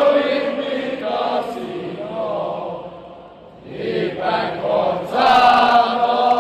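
Football supporters chanting together in repeated sung phrases, with a brief lull about three and a half seconds in.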